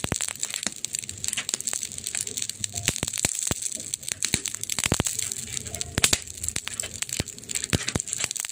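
Wood fire crackling, with irregular sharp pops and snaps over a steady hiss; a few louder pops about five and six seconds in.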